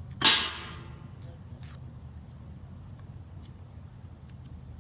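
A sudden loud fizzing hiss about a quarter second in, dying away within half a second: carbonated Coke releasing its gas from a 2-liter bottle.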